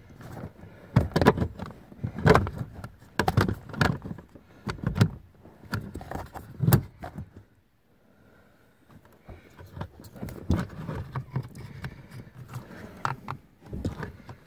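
Plastic under-dash parts and wiring of a 2015 Volvo S60 being handled and clipped back into place by hand: an irregular run of rustling, clicks and knocks, with a brief pause about halfway through.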